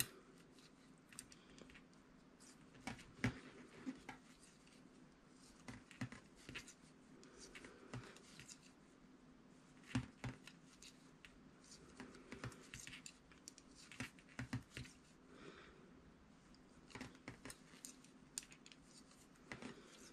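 Faint, irregular clicks of knitting needles tapping together, with soft rustles of yarn as stitches are worked.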